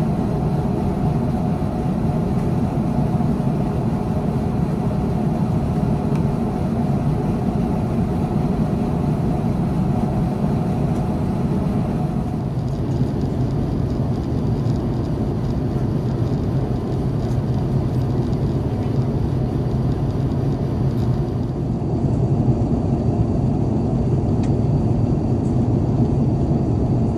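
Steady in-flight cabin noise of an Airbus A350-941 heard from a window seat: the drone of its Rolls-Royce Trent XWB-84 turbofans and air rushing past the fuselage. The sound shifts slightly about twelve seconds in and again about twenty-two seconds in.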